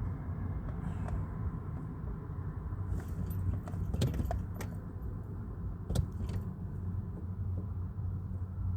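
A steady low hum from a 2008 BMW 135i that has just been switched on, with a few light clicks and rattles around the middle.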